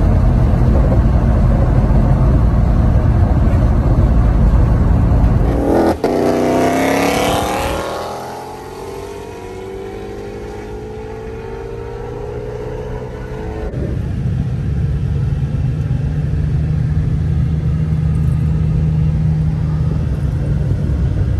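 Ford Mustang V8 heard from inside the car while driving: a loud low road-and-engine rumble. About six seconds in, the engine note rises sharply as the car accelerates, then settles into quieter gliding tones. In the second half it runs at a steady low drone at low speed.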